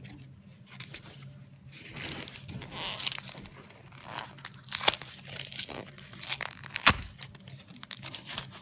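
Foil wrapper of a Pokémon trading card booster pack being torn open and crinkled, with several sharp crackling snaps about halfway through.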